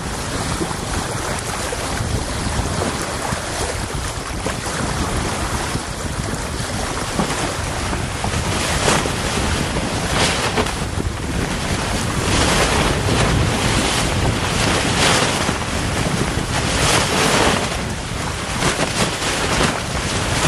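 Wind buffeting the microphone and water rushing along the hull of a Sedna 24 trailer-sailer yacht sailing under spinnaker. The noise comes in gusts that grow stronger about midway through.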